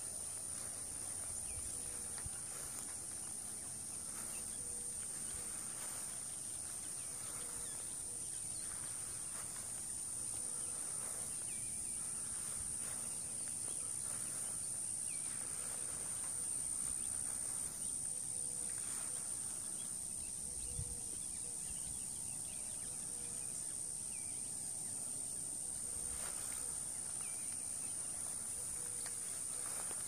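Rural outdoor ambience: a steady high-pitched insect hum, with faint bird chirps scattered through it.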